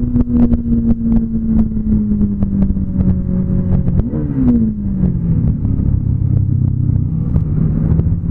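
Motorcycle engine running under way, its pitch easing slowly down. About four seconds in there is a brief throttle blip, after which it runs at a lower pitch. Irregular clicks run throughout.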